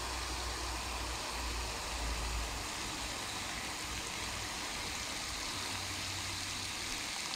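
Garden hose spray nozzle on its shower setting spraying water steadily into a plastic bilge-pump box as it fills: an even hiss and splash of water.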